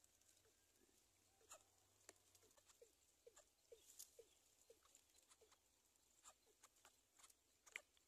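Near silence: faint ambience with scattered soft ticks and a run of faint, short chirps, about two or three a second, that fade out after about five seconds.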